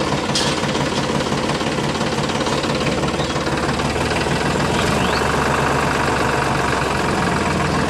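Tractor engine idling steadily with a low, even engine note.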